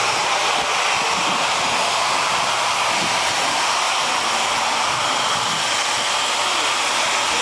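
Steady, loud hiss of steam from the steam locomotive, Engine 734.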